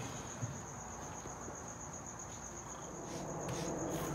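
Crickets chirping in a steady, continuous high trill. A faint low hum comes in near the end.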